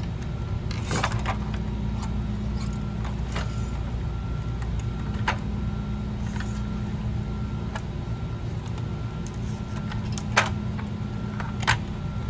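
Scattered clicks and light knocks of a plastic toy tank's body and parts being handled as its top is taken off, over a steady low hum. The two sharpest clicks come near the end.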